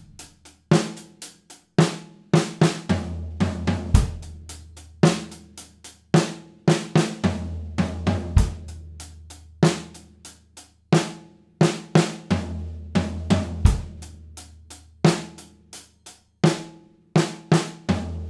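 Acoustic drum kit playing a groove with sixteenth notes on the hi-hat, alternating with a short fill: an eighth note and two sixteenths on the snare on beat three, then on the floor tom on beat four. The floor tom's low ring sounds out roughly every five seconds, at each fill.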